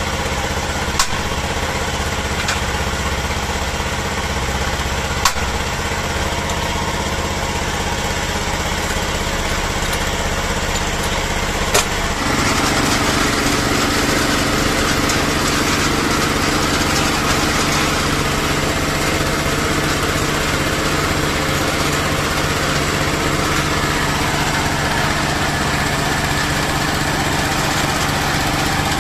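Small engine driving a water-well drilling rig runs steadily, with a few sharp metallic clinks as the drill pipe is handled with a wrench. About twelve seconds in the engine note changes and grows louder as the drive is engaged and the rig is put back to work.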